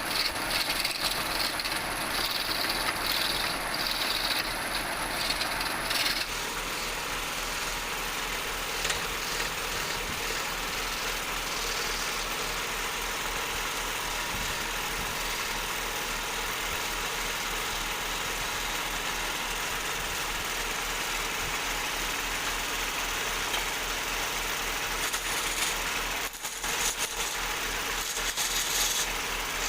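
Wood lathe running with a tool cutting into the spinning wood: a steady, even hiss of cutting over a low machine hum. The sound changes about six seconds in and drops briefly near the end.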